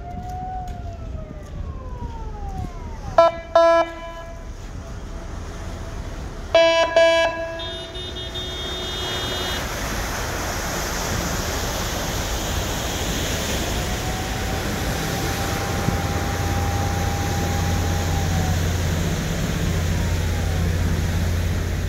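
Harbour soundscape: a siren wails up and down once, then come short loud honks, two together and then one more. After that a steady low engine hum with rushing water noise builds and grows louder, like a ferry's engine working.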